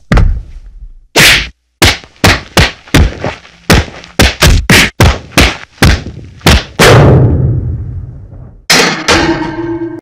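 Fight sound effects: a rapid string of punch and hit impacts, about fifteen sharp whacks and thuds a few tenths of a second apart. One heavy hit about seven seconds in is followed by a long fading rumble. Near the end comes a hit with a ringing, clang-like tone.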